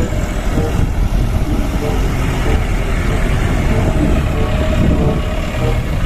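Diesel engine of a Toyota Dyna dump truck loaded with sand, running steadily as the truck drives slowly over rough dirt.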